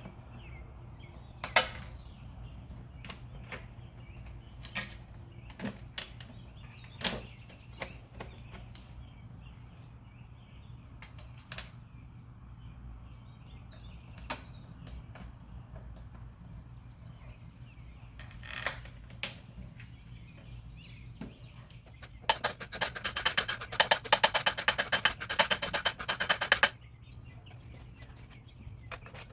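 Hand tools and metal engine parts knocking and clinking while the water pipe is fitted into the engine valley, then a hand ratchet clicking rapidly for about four seconds near the end. A steady low hum runs underneath.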